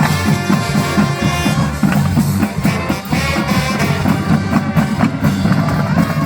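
Marching band playing: sustained horn chords over a drumline, with a close run of bass drum and snare strokes.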